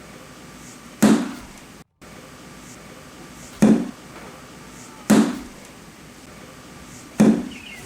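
A 10-pound sledgehammer striking a tire four times, each blow a heavy impact that dies away quickly. The blows are unevenly spaced, about a second and a half to two and a half seconds apart.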